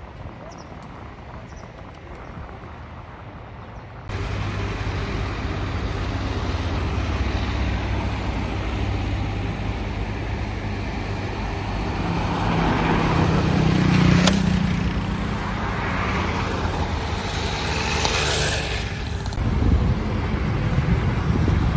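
City street traffic: a steady low engine hum with vehicles passing. The loudest pass is about two-thirds of the way through and another comes near the end. The sound jumps from a faint open-air hum to the louder traffic about four seconds in.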